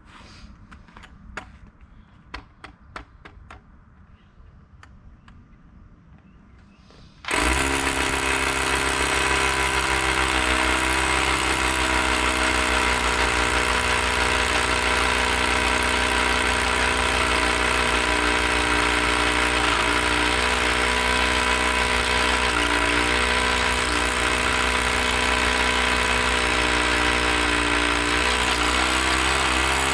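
Corded rotary hammer drilling into a concrete slab. The first seven seconds hold only a few light clicks; then the hammer starts abruptly, runs steadily at full hammering and cuts off near the end.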